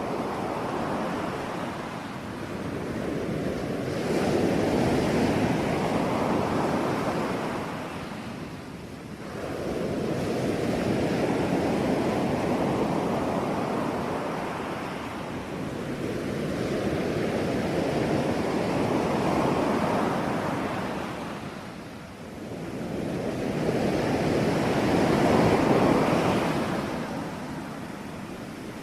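Ocean waves breaking on the shore, the noisy wash swelling and ebbing in long surges every six or seven seconds.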